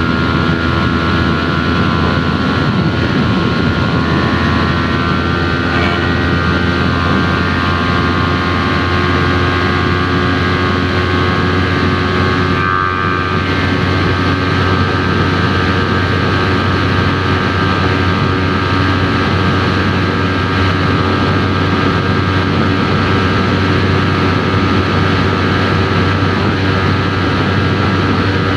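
Yamaha YZF-R3 parallel-twin engine through an aftermarket Arashi exhaust, heard on board while riding at a fairly steady engine speed, with a short dip about halfway through.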